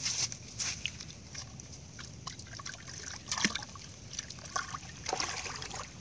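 Hands sloshing and splashing in shallow muddy water while grabbing fish trapped in a dug pit: irregular splashes and sloshes, the loudest about three and a half seconds in.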